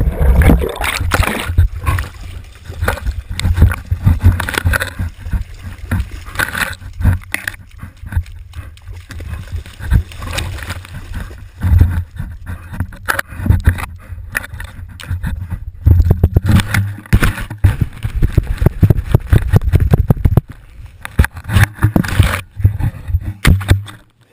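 Water churning and splashing around a GoPro Hero2 in its waterproof housing as a dog swims with the camera's stick in its mouth and carries it up the bank. Irregular knocks, scrapes and a low rumble run throughout as the housing is jostled, and the sound drops away sharply near the end.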